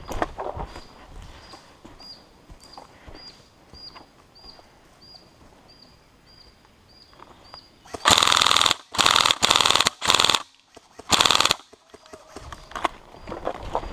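Electric airsoft rifle firing four short full-auto bursts, starting about eight seconds in, each a loud buzzing rattle of about half a second that stops sharply.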